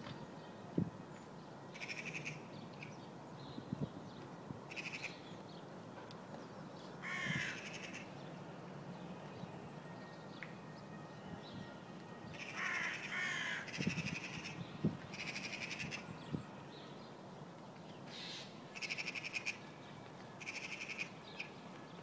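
Crow-family birds calling repeatedly from the treetops: short harsh calls coming in bouts every one to three seconds, with the busiest stretch in the middle.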